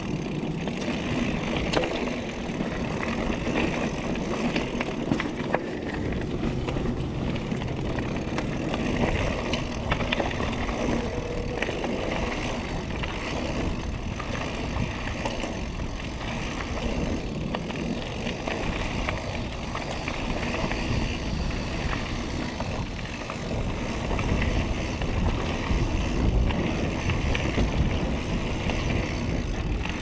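Diamondback Atroz 3 mountain bike rolling fast down a dirt singletrack: steady tyre noise on dirt and gravel with frequent small rattles and knocks from the bike over bumps.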